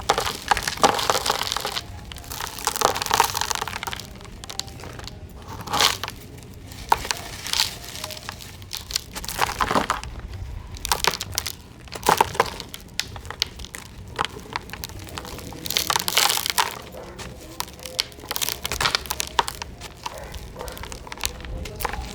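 Dry, dusty cement chunks being crushed and crumbling. The crunches come in irregular bursts every second or two, with gritty crackling between them.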